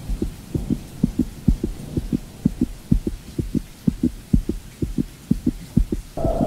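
Heartbeat sound effect: low double thumps, about two beats a second. Near the end a steady high tone cuts in.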